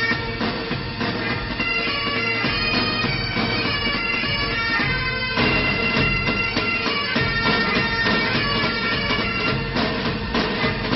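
Bagpipe music playing as a background track, a melody over a steady drone.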